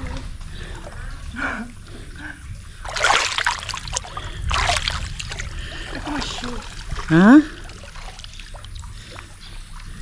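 Water splashing in two bursts, about three and then five seconds in, with faint voices around. A little past the middle comes a short rising cry from a person, the loudest sound.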